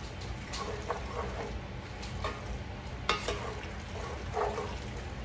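A spoon stirring pasta, ground beef and tomato sauce in a cast-iron skillet, scraping along the pan in irregular strokes.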